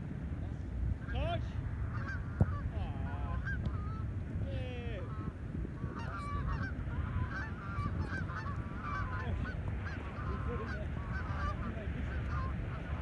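A flock of geese flying over, honking in many short, overlapping calls, over a steady low rumble of wind on the microphone. One sharp knock about two and a half seconds in.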